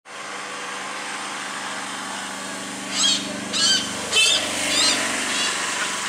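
Malabar pied hornbill calling: five loud, harsh, high notes about half a second apart, starting halfway through. A steady low hum runs underneath.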